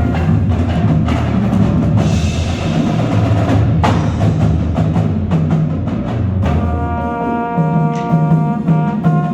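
Marching band playing: the percussion section drives a fast passage of drum and mallet hits over low drum notes, then about two thirds of the way through the winds come in on a held chord.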